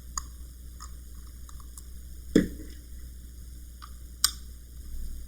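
Scattered small clicks and taps of a screwdriver and tiny screws as the little side screws are taken out, with a sharper knock about two and a half seconds in and a crisp click near the end.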